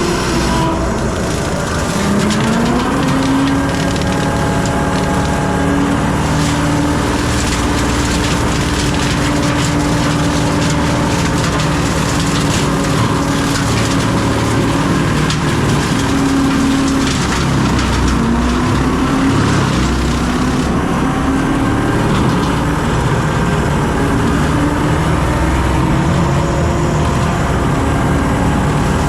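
John Deere 326E skid steer's diesel engine running hard while its hydraulic brush cutter shreds brush and small wood, with steady crackling and splintering. The engine pitch sags briefly twice, about two seconds in and again a little past the middle, then recovers.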